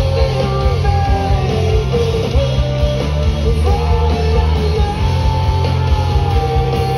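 Rock band playing live, guitar-heavy with a full low end, and a held, wavering melody line above the band.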